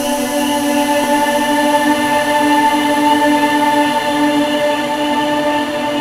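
Intro music of held chords forming a steady, sustained drone with no beat.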